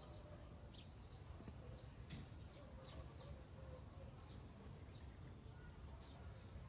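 Near silence: faint outdoor ambience with a low rumble and scattered faint short chirps.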